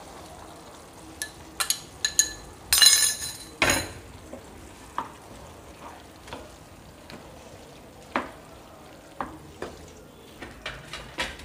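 Metal spoon scraping chopped green capsicum out of a glass bowl into a pan of chilli chicken gravy, then stirring it through, with scattered clinks and scrapes against the pan. The loudest scraping comes about three seconds in.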